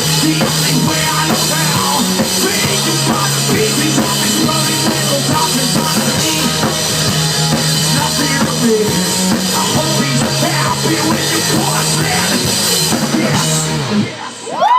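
Live rock band playing the instrumental ending of a song, with a drum kit. The music stops shortly before the end, and a rising whistle from the audience begins as cheering starts.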